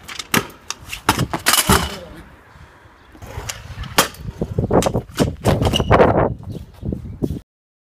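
Stunt scooter on stone stairs and paving: hard clacks as the deck and small wheels land on the steps, and rough rolling of the wheels over the slabs. The sound cuts off suddenly near the end.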